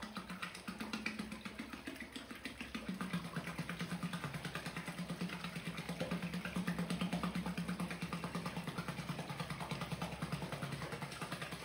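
Electric motor spinning a 3D-printed sweepback propeller through a magnetic gear, running with a steady hum that grows stronger about three seconds in. The blade tips break the surface and churn and splash the water, which reduces the propeller's efficiency.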